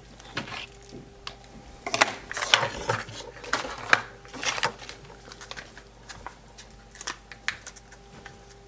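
Small plastic toy pieces and packaging being handled: irregular clicks, taps and short rustles.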